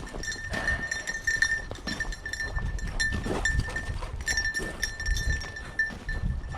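Footsteps thudding and rustling through field cover, with a steady high tone that keeps breaking up.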